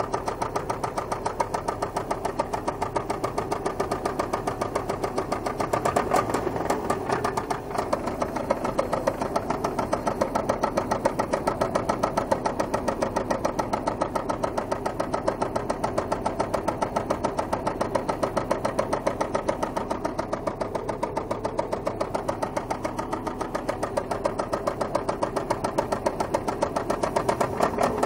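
Volvo 850 Turbo's five-cylinder turbo engine running with a severe, rapid and even knocking throughout, which the owner puts down to oil loss or low oil pressure from a clogged oil sump.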